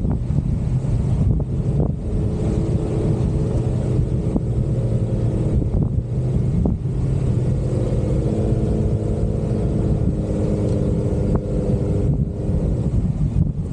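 Jeep Wrangler engine running steadily under way, a constant loud drone, with a few brief knocks or clatters scattered through.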